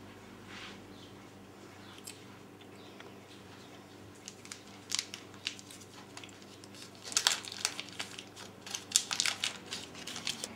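Foil wrapper of a cube of fresh yeast crinkling as it is peeled open and the yeast crumbled out. Scattered sharp crinkles at first, coming thicker and louder over the last few seconds.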